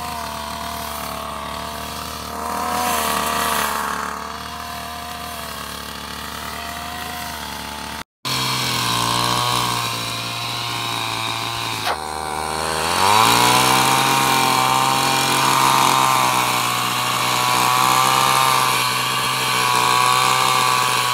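Backpack brush cutter's small petrol engine running at high revs while cutting grass. The sound drops out for an instant about eight seconds in, and near twelve seconds the engine note dips sharply and climbs back up.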